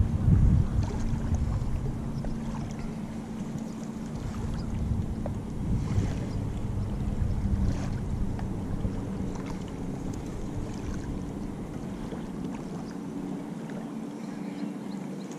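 Motorboat engine running steadily, slowly fading as it moves away, with wind rumbling on the microphone at the start.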